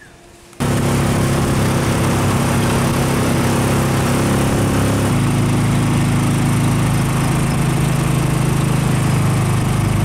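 A small vehicle's engine running steadily, heard from on board while riding, with rushing wind noise. It starts abruptly about half a second in, and its pitch pattern shifts about halfway through.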